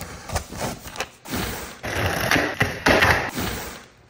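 Cardboard boxes being opened and unpacked: scissors slitting packing tape, then a string of knocks, thumps and short rustles as box flaps and plastic bags of ball pit balls are handled.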